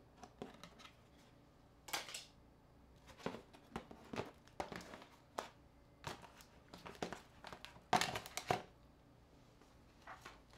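Smartphones being handled, slid across and stacked on a table: irregular taps, clicks and clatter of the phones' hard cases, with a louder run of knocks about eight seconds in.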